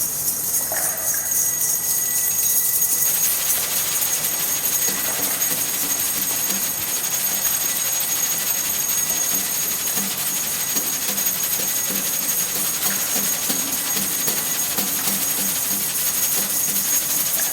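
Sustained high shimmering jingle of shaken percussion, held at an even level for the whole stretch, with a few steady high ringing tones inside it.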